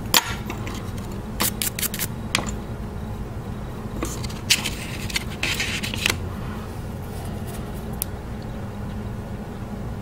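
A few short scrapes and clicks from a steel carving tool and fingers working a small hard-wax jewelry model, with two longer scraping stretches about four to six seconds in, over a steady low hum.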